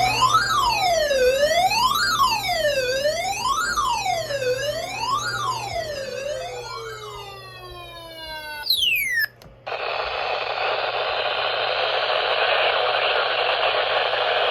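Electronic siren sweeping up and down in pitch about every second and a half, then sliding down in pitch and dying away about seven or eight seconds in. After a quick falling chirp and a brief dropout, a steady loud hiss like radio static fills the rest.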